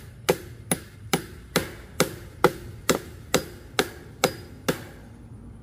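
Steady hammering on a wooden fence post while woven wire fencing is fastened to it: eleven even blows a little over two a second, each with a short ring, stopping near the end.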